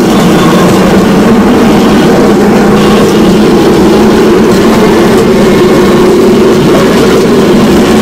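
Motorrodillo, a rail cart driven by a motorcycle engine and riding on ball-bearing wheels, travelling along railway track: the engine runs steadily over the rumble of the bearing wheels on the rails.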